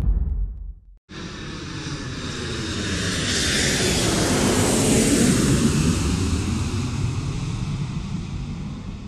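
A jet airliner passing overhead, swelling to its loudest about halfway through and fading away with a falling sweep. It is preceded by the tail of a deep boom that cuts off about a second in.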